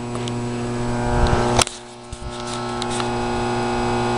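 Steady electrical hum, a buzzing tone with many even overtones over a low rumble, with a sharp click about one and a half seconds in.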